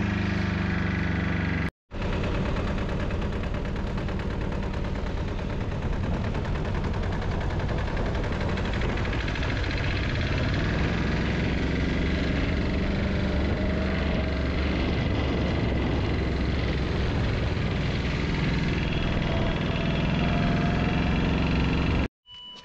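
A vehicle engine running steadily and evenly, with a brief total dropout about two seconds in.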